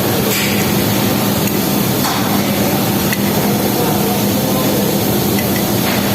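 A few separate knocks of a hammer tapping on a washing machine pulley to loosen it. Under them runs a steady loud hiss with a constant hum.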